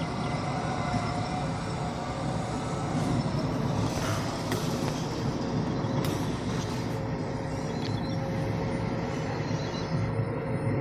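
Large log-unloading crane at work: its diesel engine and hydraulics running steadily, with a faint steady whine and a few sharp knocks about four to seven seconds in.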